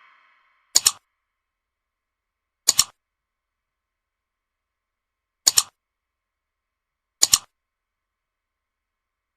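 Camera shutter sound effect, clicking four times at uneven intervals, each a quick double click like an SLR shutter, with dead silence between the clicks.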